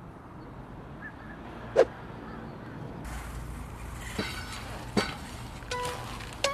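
Quiet background with a few short, sharp clicks, the strongest about two seconds in. Near the end, short plucked notes of background music begin.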